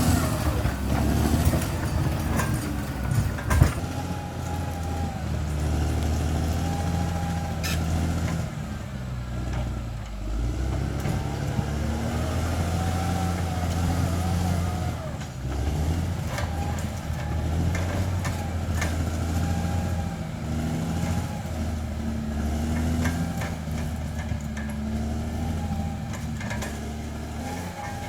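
Bulldozer's diesel engine working under changing load, its note rising and easing every few seconds, with a sharp knock about three and a half seconds in.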